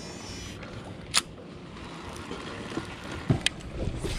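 Baitcasting reel during a cast and retrieve: the spool whirs briefly as line pays out, then there is a sharp click about a second in and another about three and a half seconds in as the reel is cranked.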